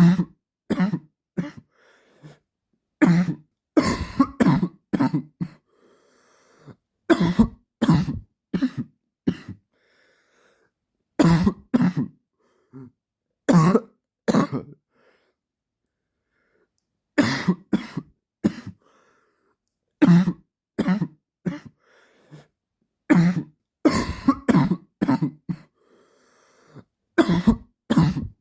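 A man's dry cough, coming in repeated short fits of a few sharp coughs each, separated by pauses of a second or two, with a longer pause about halfway through.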